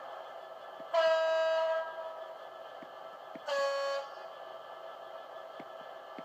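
Horn from the sound file of a Hornby OO gauge Class 59 diesel model, played through the model's speaker: a higher note lasting almost a second, then a shorter, lower note about two and a half seconds later, over a steady background hum.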